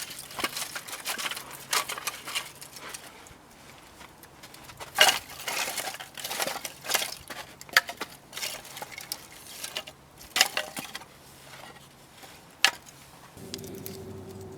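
Camping gear being handled: rustling and clattering, with a sharp knock every two to three seconds.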